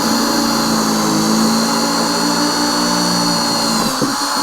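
Electric drill running steadily while drilling out mounting holes, then stopping near the end.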